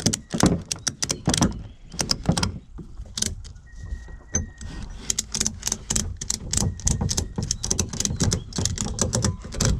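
Ratchet tie-down strap being cranked tight on a car roof rack: sharp ratcheting clicks, a few spaced ones at first, then a fast run of about four or five a second from about halfway through.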